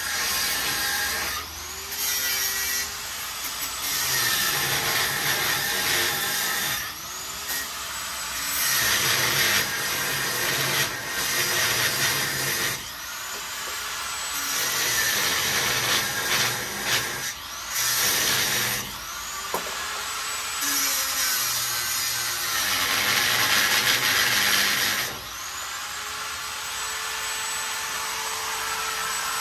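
Handheld electric power tool run in about half a dozen bursts of a few seconds each, its motor whine rising as it spins up and falling as it is let go, with a loud rasping working noise while it runs.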